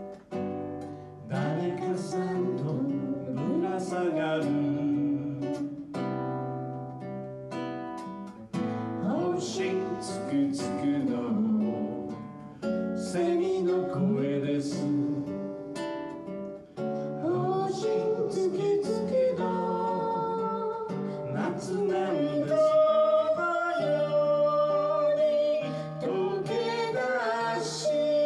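A folk song sung to a strummed acoustic guitar.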